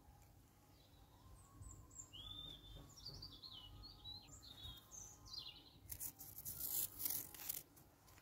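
Small garden birds chirping in the background, a string of short rising and falling calls. Near the end comes a burst of scratchy rustling.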